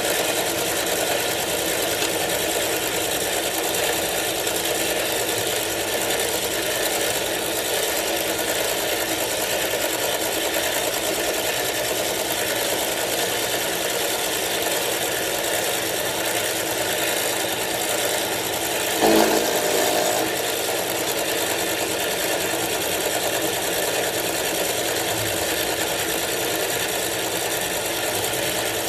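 Milling machine running steadily while an end mill cuts the lock relief into a frame lock knife's frame, fed by hand. About nineteen seconds in there is a brief, louder whine.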